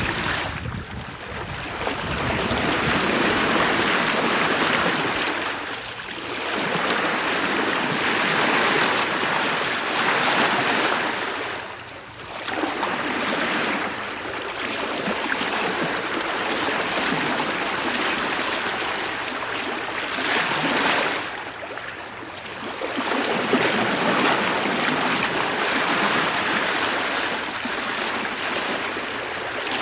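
Bow wave of the three-masted schooner STS Malcolm Miller, heard from the bowsprit at about 4 knots in a 9-knot wind: a continuous rush of water along the stem that swells and eases in slow surges, dropping away briefly several times.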